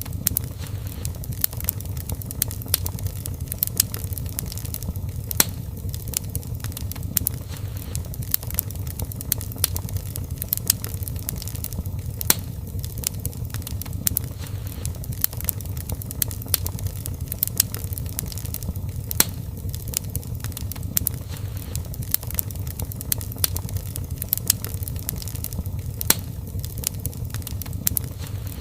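Wood fire burning in a fireplace, crackling with frequent sharp irregular pops over a steady low rumble of the flames.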